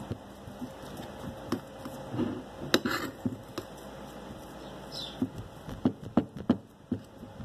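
Irregular soft clicks and taps of a utensil mashing boiled potato against a ceramic plate, with the sharpest click a little under three seconds in.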